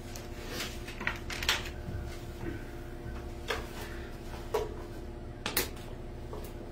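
Handling sounds close to the microphone: several separate clicks and knocks as a plastic water bottle is picked up and raised for a drink, over a steady low hum.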